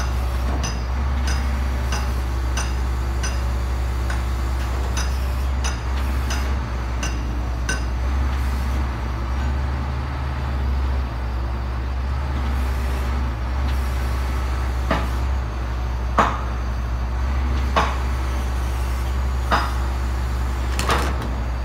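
Heavy diesel engine idling with a steady low hum, with light metallic clinks and, in the second half, a handful of louder metal clanks a second or two apart.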